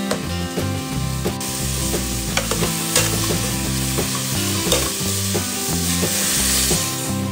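Onions and tomatoes sizzling as they fry in an aluminium pot, with a metal spoon stirring them and clicking against the pot. The sizzle grows louder about a second and a half in.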